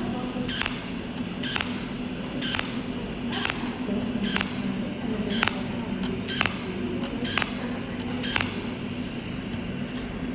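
Cold welding machine firing its arc pulses about once a second, each a short, sharp hiss as another weld dot melts 0.8 mm stainless steel filler wire. A steady low hum runs beneath the pulses.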